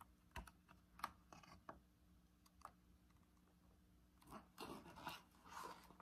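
Paper picture book being handled: a few light taps and clicks, then the rustle of a page being turned, starting about four seconds in. Faint overall.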